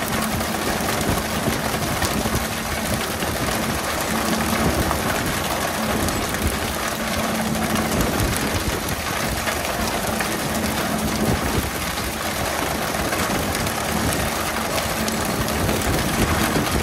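A fishing boat's engine runs under a steady rush of water spray and splashing, with a low hum that comes and goes.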